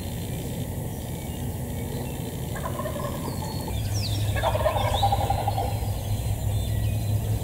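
Wild turkey gobbling: a rapid, rattling run of notes, loudest a little past halfway, with a fainter call a few seconds in.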